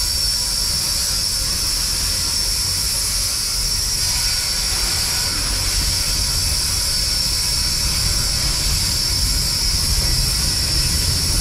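Cockerill vertical-boilered shunting locomotive running under a breath of steam, heard from the cab: a steady hiss of steam with a low rumble underneath.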